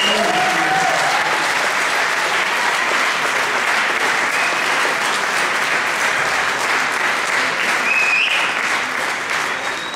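Audience applauding: a steady round of clapping from many hands that begins to die away near the end.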